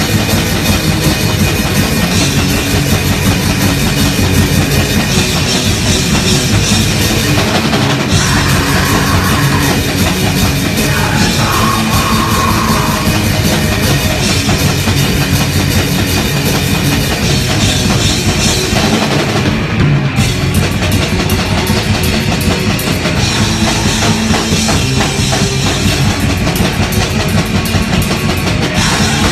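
Loud heavy rock band playing, the drum kit to the fore: drums pounding and cymbals crashing throughout, with a brief break in the cymbals about twenty seconds in.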